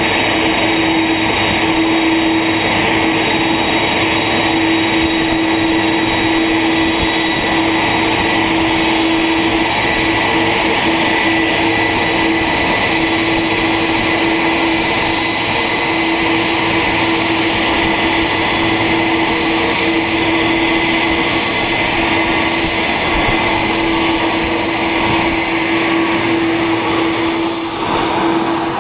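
Airbus A330 jet engines running at idle close by, mixed with the pushback tug's engine: a loud, steady whine with several unchanging high tones over a rumble. There is a brief dip in the sound near the end.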